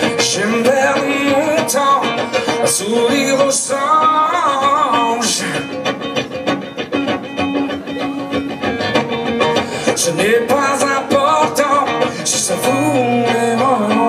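A man singing in French into a microphone while playing an acoustic guitar, recorded live from the audience. His voice comes in phrases, with the guitar carrying on alone for a few seconds in the middle.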